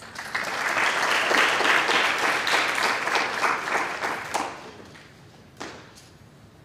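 Small audience applauding for about four and a half seconds, then dying away, with one short knock a second later.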